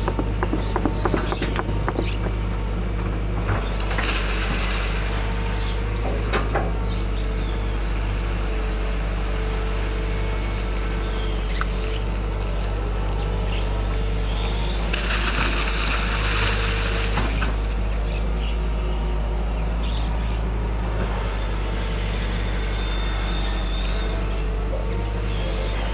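Excavator's diesel engine running steadily with a low hum, with a few clicks near the start, a short rushing burst about four seconds in and a longer one about fifteen seconds in.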